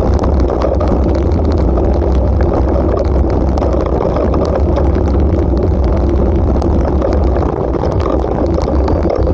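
Bicycle rolling over a gravel dirt road: steady tyre rumble with small rattling ticks, under heavy wind buffeting on the bike-mounted camera's microphone.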